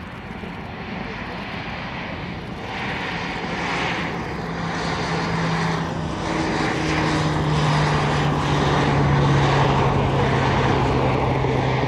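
Twin Allison T56 turboprop engines and propellers of an E-2C Hawkeye in a display pass, a steady droning hum growing louder. The propeller hum drops slightly in pitch about seven seconds in as the aircraft goes by.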